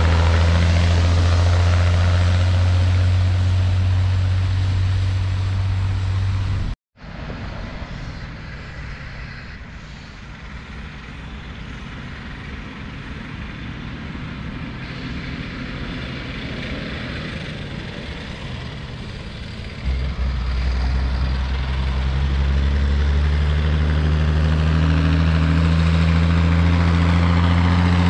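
Ursus 1201 tractor's six-cylinder diesel engine running with a steady low drone. The sound breaks off abruptly about seven seconds in, comes back much quieter, then grows loud again from about twenty seconds in, its pitch climbing slightly toward the end.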